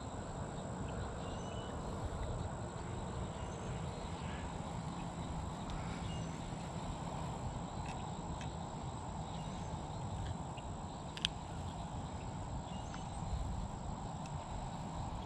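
Outdoor ambience: a steady low rumble with faint scattered chirps and a thin steady high tone, and one sharp click about eleven seconds in.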